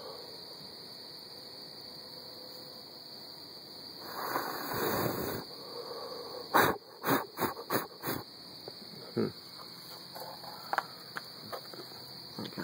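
Crickets chirping in a steady, high-pitched chorus. About four seconds in there is a brief rustle, then a quick run of about six sharp knocks.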